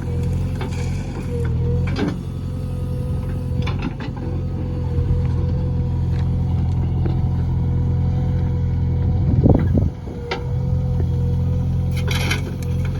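JCB backhoe loader's diesel engine running steadily, with scattered knocks and clanks. The sound swells briefly about nine and a half seconds in, then dips before settling back.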